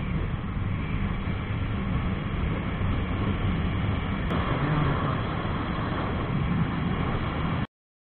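Jawa 42 motorcycle's single-cylinder engine running at road speed, with wind rushing over the handlebar-mounted camera; the sound cuts off abruptly near the end.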